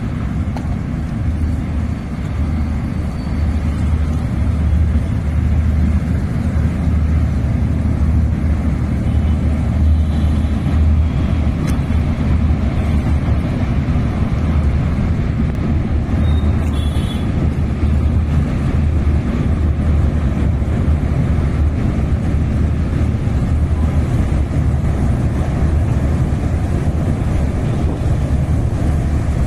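Steady low rumble of wind buffeting the microphone over the flowing floodwater of the river, with no sudden events.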